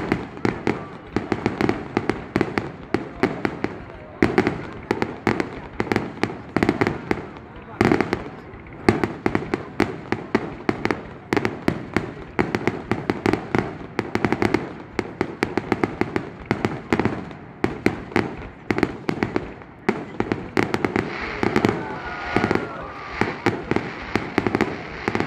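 Fireworks going off: a dense, unbroken run of sharp cracks and bangs, several every second, with people's voices underneath.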